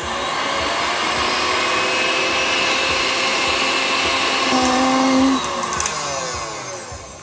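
KitchenAid stand mixer with a wire whisk whipping aquafaba meringue toward stiff peaks: a steady, loud motor whine. It picks up speed at the start and winds down over the last couple of seconds.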